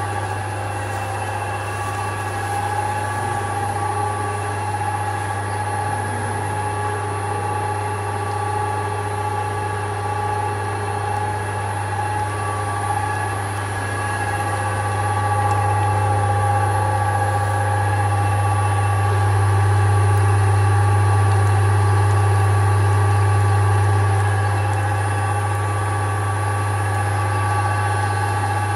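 GM-5000 Plus screw oil press running while pressing safflower seed for oil: a steady, deep machine hum with several constant higher whining tones over it. It swells louder for several seconds past the middle, then eases slightly.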